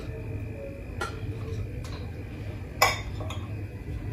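Dishes and kitchen utensils knocking and clinking on a counter during salad preparation: a few separate knocks, the loudest nearly three seconds in, over a low steady hum.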